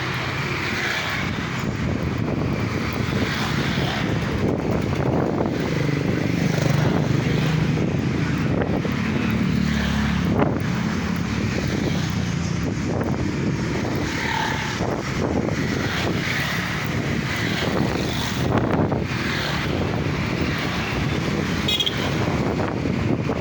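Steady road-vehicle noise while moving, with wind blowing on the microphone.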